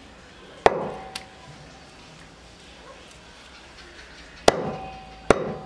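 Large knife chopping through raw turkey onto a wooden chopping board. There are three hard strokes, one under a second in and two near the end, with a lighter tap after the first, and each hard stroke leaves a brief ringing tone.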